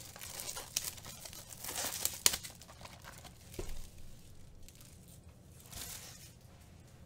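Plastic wrapper crinkling and tearing, with scattered light clicks and knocks of cardboard, as a sealed Topps Finest trading-card box is unwrapped and opened. The crinkling comes in uneven bursts, busiest about two seconds in and again near the end.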